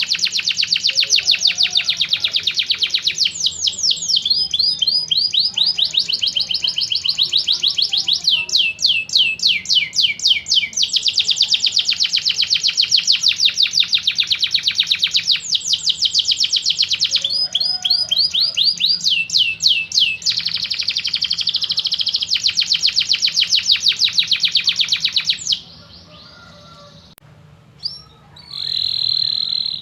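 Domestic canary singing long, rapid trills: rolling runs of quickly repeated high notes that change speed and pitch every few seconds. The song stops briefly near the end, with one click in the gap, then starts again.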